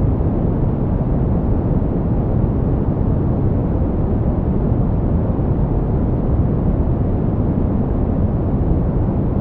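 Green noise: a steady, even hiss of synthetic noise weighted toward the low and middle range, with no changes.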